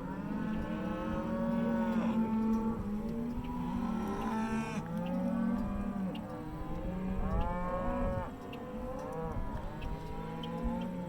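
A herd of cattle mooing and bawling, many calls overlapping continuously, some long and drawn out.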